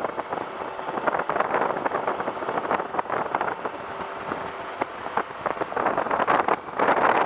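Wind rushing and buffeting over the microphone of a camera on a Suzuki Bandit 1250 motorcycle at road speed. The rush eases somewhat after the first second and builds again near the end.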